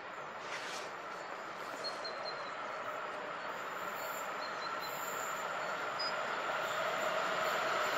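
A train approaching along the line, its rumble growing steadily louder.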